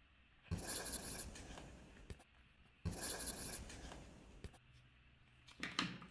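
Felt-tip highlighter dragged across paper in two long strokes of about a second and a half each, then a few light clicks near the end as pens on the desk are handled.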